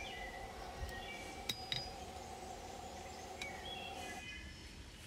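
Faint steady machine hum that stops about four seconds in, with a few short bird chirps and two light clicks.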